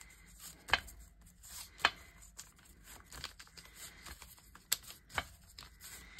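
Ink sponge dabbed and rubbed along the edge of a sheet of paper lying on glass, a soft scratchy rustle broken by a few sharp taps, the loudest about two seconds in.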